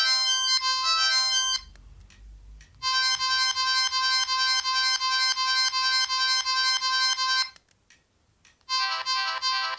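Electronic ringtone tunes playing from an O2 X2 mobile phone's speaker, one after another: one tune stops about a second and a half in, a second plays from about three seconds in to about seven and a half, and a third starts near the end after a short pause.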